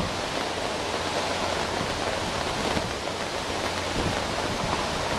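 Hurricane wind howling with heavy rain falling, a steady, even rush of noise.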